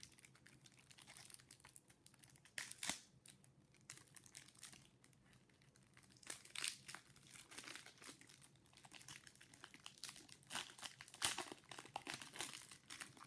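Crinkly packaging on a trading-card structure deck being handled and torn open: faint, irregular crackling and rustling, with louder rips about 3, 7 and 11 seconds in.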